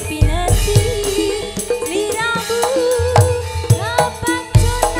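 A woman singing a Javanese tayub song into a microphone over live gamelan accompaniment, her wavering melody carried over low kendang drum strokes and bright metallic percussion.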